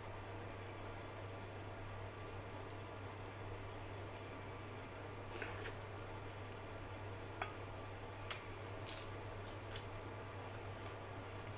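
Fingers mixing rice and dal on a plate, then chewing a mouthful by hand: soft wet squishing with a few sharp clicks, over a steady low hum.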